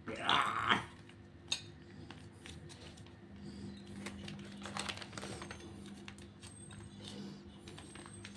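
Foil wet pet-food pouch crinkling and rustling as it is squeezed by hand, with small scattered clicks and soft sounds of the meaty chunks dropping into a ceramic bowl. A brief louder sound comes at the very start.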